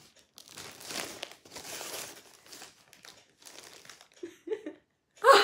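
Thin plastic bag rustling and crinkling as a wrapped gift is pulled out of it, loudest in the first half, then softer crackles of plastic packaging.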